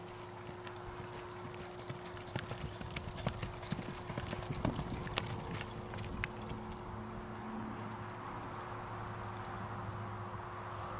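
Quarter Horse's hoofbeats on arena dirt at the lope, loudest in the middle, ending about six seconds in as the horse comes to a sliding stop and stands.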